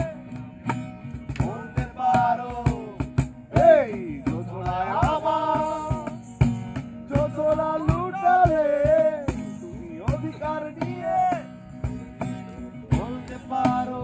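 A folk-style song: a solo voice sings a wavering melody over a sustained low accompaniment and clicking percussion.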